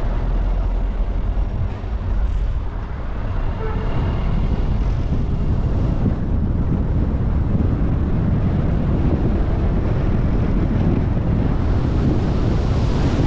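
Steady road and wind noise from a moving car, with wind rumbling on the microphone.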